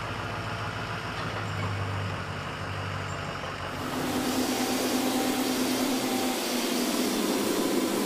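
Pickup truck engine running with a steady low hum while towing the aircraft. About four seconds in, a louder, steady rushing hiss with a few held tones takes over.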